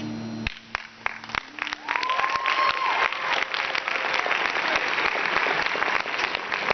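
Audience applause in a school auditorium, starting about half a second in as the quiet background music under the poem cuts off, and building to steady full clapping by about two seconds in, with one drawn-out high call from the crowd around then.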